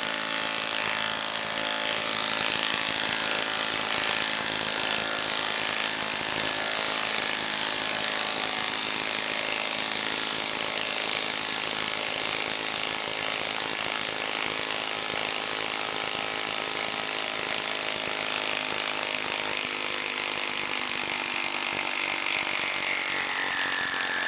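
Milwaukee M12 Stubby 1/2-inch impact wrench hammering without a break as it drives a long lag screw into a wooden stump, the tool working under heavy, sustained load.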